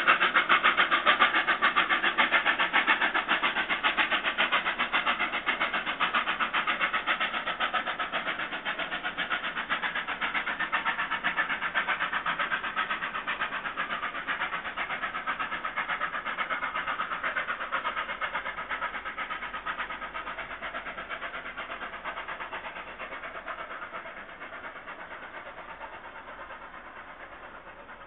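Victorian Railways R class 4-6-4 steam locomotive R707 hauling its train away at speed, its rapid exhaust beats and the train's running noise fading steadily into the distance.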